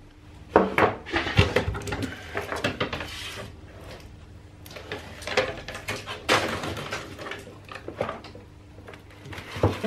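Irregular knocks, clicks and clatter from a plywood crate being opened by hand: the plastic strapping is cut and the hinged wooden lid is lifted, with rustling as the contents are handled.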